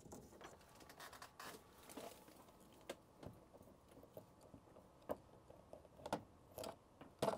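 Faint handling noise: scattered light clicks and rustles of an Ethernet cable and a fish stick being fed through a hole in a shed wall and pulled out from under the eave.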